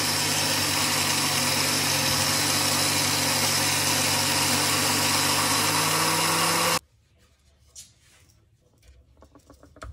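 Electric grinder/blender motor running steadily while grinding flaxseed, its pitch creeping up slightly before it stops abruptly about seven seconds in. Only faint soft clicks follow.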